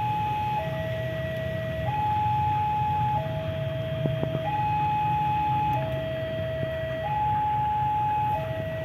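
Level-crossing warning alarm sounding a steady two-tone high-low signal, each tone held about a second and a quarter, over the low diesel rumble of an approaching CC 201 locomotive.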